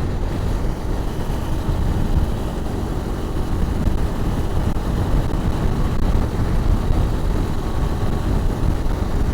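Honda CRF250 Rally's single-cylinder engine running steadily while riding, heard through a lavalier mic inside a crash helmet as a dense, unbroken rumble.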